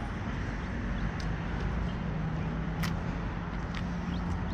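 Steady noise of road traffic, with a low vehicle engine hum coming in about a second in and holding steady.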